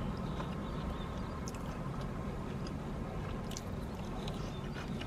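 A person chewing mouthfuls of coleslaw, with small crunches and wet clicks, over a steady low hum inside a car.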